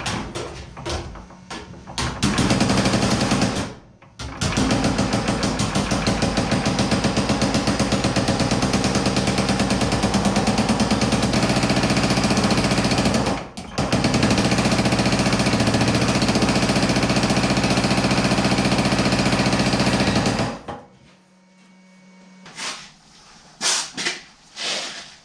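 Power hammer pounding a sheet-metal panel in rapid, steady strokes, in three long runs with short pauses about 4 and 13 seconds in. It stops about 20 seconds in, leaving a few scattered knocks.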